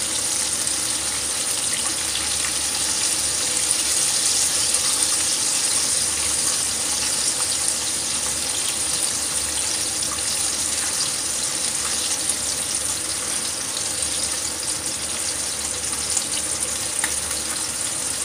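Karaage chicken pieces deep-frying in hot oil: a steady sizzling hiss with fine crackles.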